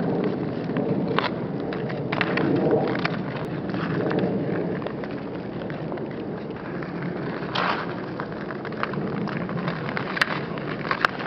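Steady outdoor rushing noise with a few scattered sharp clacks, typical of hockey sticks hitting a puck and skates scraping on pond ice during a shinny game.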